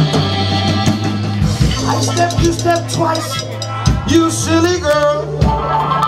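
Live reggae-soul band playing: a male singer's vocal over bass guitar and drum kit.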